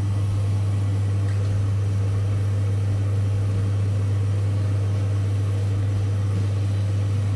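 A small motor humming steadily: one low, unchanging hum with a faint even hiss above it.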